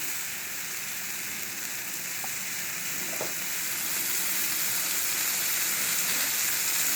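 Oil sizzling and steaming in a whole onion (a 'volcano onion') on a Blackstone flat-top griddle: a steady frying hiss that gets slightly louder about four seconds in.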